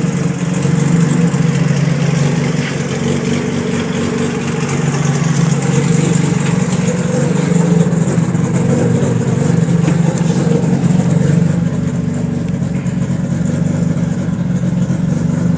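Mazda RX-7's freshly rebuilt 13B rotary engine running steadily on its first start-up, idling a little high.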